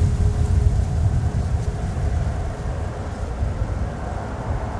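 Distant low rumble of an Airbus A340-500's four Rolls-Royce Trent 500 jet engines at low power as the airliner taxis, with a faint steady engine tone over it.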